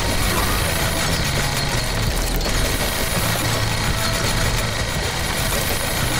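Steady engine-like machine running noise with a low throb, from a DIY toy tractor's motor-driven drum boring into sand.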